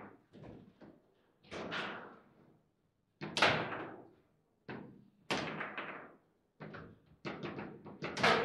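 Foosball table in play: a string of sharp knocks and clacks as the ball is struck by the rod-mounted figures and bangs against the table, about eight hard hits at uneven intervals, each ringing briefly.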